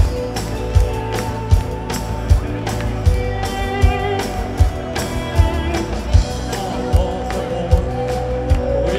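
A live rock band playing, with electric guitar, bass and drum kit. The loudest drum hit lands steadily about every three-quarters of a second.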